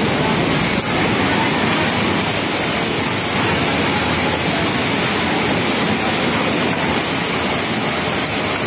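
Industrial sewing machines running on a garment factory floor: a steady, dense whir with no pauses. The Pegasus WT600 flatlock machine in front is stitching a sleeve hem among them.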